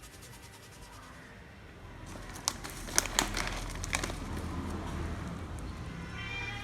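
A few sharp clicks and crinkling over a low rumble, then a crow's caw starting near the end.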